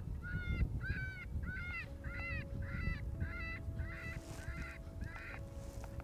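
A rapid run of about a dozen short, honking animal calls, roughly two a second, that stops shortly before the end.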